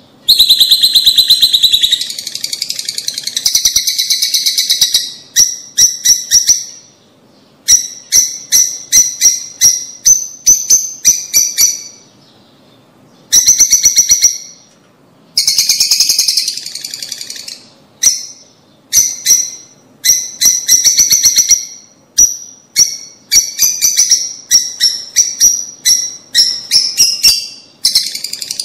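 Lovebirds chattering in rapid runs of shrill chirps, broken by short pauses.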